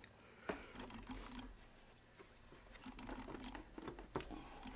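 Small scooter carburettor being pushed and worked back into place by hand among its hoses: faint rubbing and rustling with scattered clicks, the sharpest about half a second in and again near the end.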